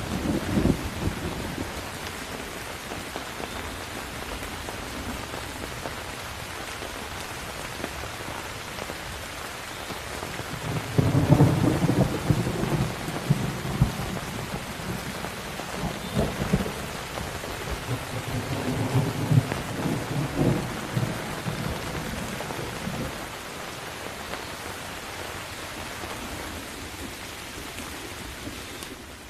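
Steady heavy rain on hard surfaces with thunder: a short rumble at the start, then a long rolling rumble from about a third of the way in, loudest at its onset and dying away over about ten seconds.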